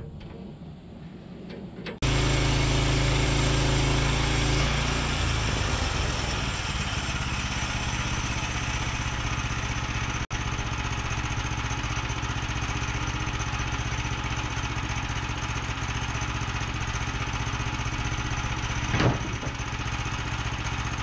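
Small gas engine of a Woodland Mills HM122 portable bandsaw mill running steadily. It comes in abruptly about two seconds in, and there is a single short knock near the end.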